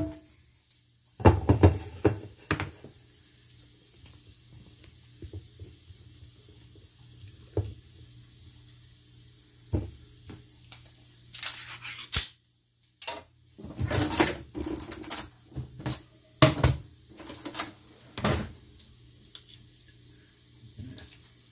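Kitchen handling sounds: scattered knocks of a ceramic plate and dishes on the counter, then a run of clinks and scrapes of a fork against a small metal tin of smoked mussels, over a faint steady hum.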